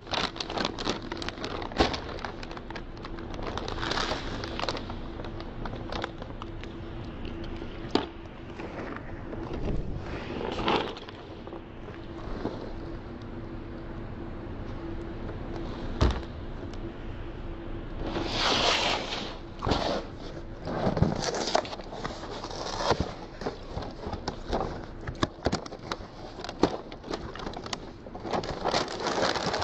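Cereal packaging being handled: a plastic bag of cereal crinkling and cardboard cereal boxes rustling, with a few sharp knocks on the table.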